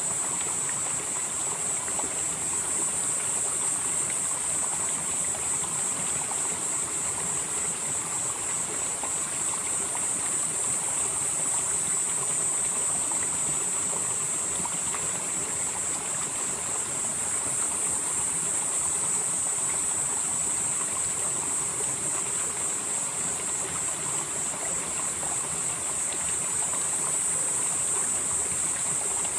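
Valley stream flowing steadily, with a high hiss that swells and fades every several seconds.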